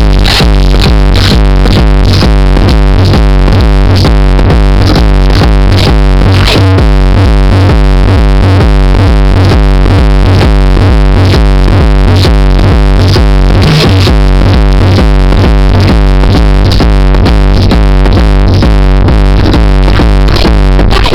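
Electronic dance music with a steady drum-machine beat and heavy bass, played very loud through a car's aftermarket sound system.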